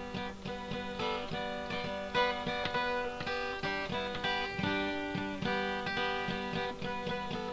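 Background instrumental music on a plucked-string instrument: quick plucked notes over steady held tones.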